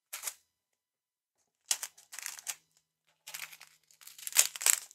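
Small clear plastic packets of diamond-painting drills crinkling as they are handled, in several short bursts, the loudest near the end.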